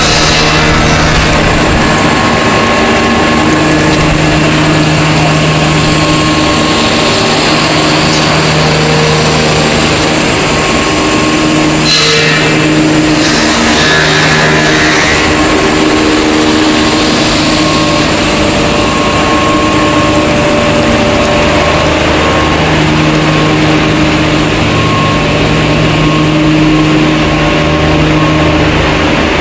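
Wood-plastic composite profile extrusion line running: a loud, steady machinery hum with several steady tones, and a brief knock about twelve seconds in.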